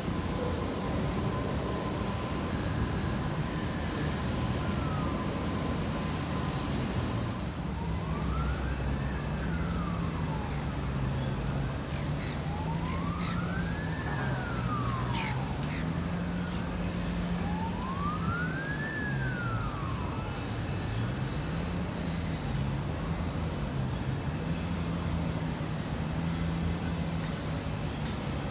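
Emergency vehicle siren wailing in slow rising-and-falling sweeps, three clear ones through the middle, over a steady low hum of engines and traffic.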